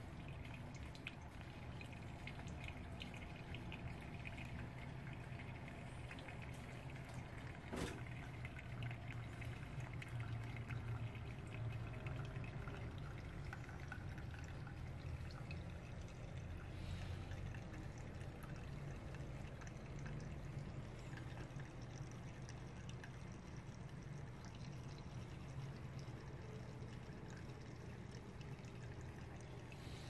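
Faint water trickling and dripping over a steady low hum, with one sharp click about eight seconds in.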